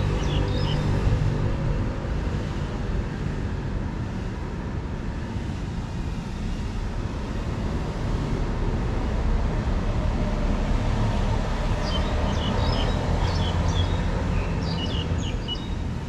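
Steady low rumble of wind on the microphone outdoors, with a few short, high bird chirps about twelve to fifteen seconds in.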